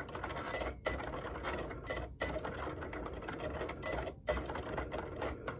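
Cricut Explore Air 2 cutting machine running as it cuts heat transfer vinyl: its carriage and roller motors whir steadily, stopping briefly about three times as the blade changes direction.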